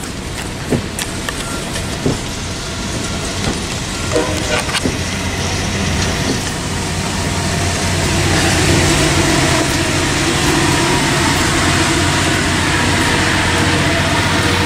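CVSR passenger train rolling past the tracks: a steady rumble with scattered clicks in the first few seconds, then a steady low hum that grows louder about eight seconds in.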